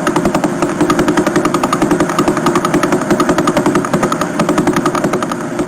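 Vela pulsar's radio pulses turned into sound: a fast, even train of ticks, about ten a second, over a rushing hiss.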